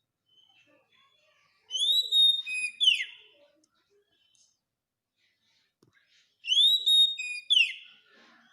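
Oriental magpie-robin (kacer) singing the same loud whistled phrase twice, a few seconds apart. Each phrase is a rising whistle held high, then quick falling notes, with faint chirps in between.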